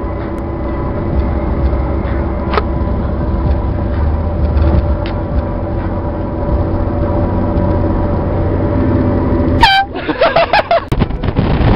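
Air horn blaring in one long, steady blast over a low rumble, cutting off abruptly near the end. Voices follow right after.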